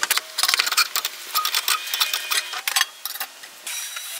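Metal clinks and rattles of an aftermarket cat-back exhaust pipe being handled and fitted under a car: rapid, irregular ticks and knocks with a little ringing. Near the end it changes to a steady rubbing scrape.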